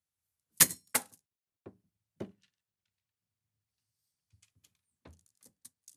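Money being dropped into a metal offering dish: two sharp knocks less than half a second apart, then two softer ones, followed near the end by a few faint taps.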